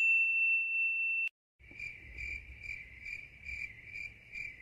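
Logo-animation sound effects: a high ringing tone that cuts off suddenly just over a second in, then, after a brief gap, a high chirping pulse repeating a little over twice a second over a low rumble.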